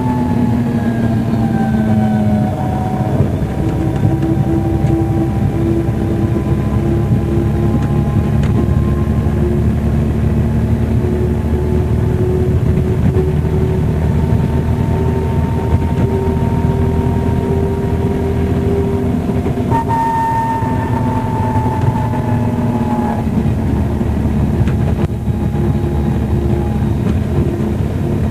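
Cummins engine of an MCW Metrobus double-decker bus heard on board while driving. The engine note falls over the first couple of seconds, then climbs slowly and steadily. About twenty seconds in the pitch jumps up suddenly and sinks again over the next few seconds.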